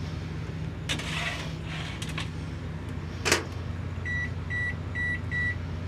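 Convection microwave oven being loaded and set: handling knocks as the pan goes in and the door shuts about three seconds in, then five short keypad beeps as the cooking time is entered. A steady low hum runs underneath.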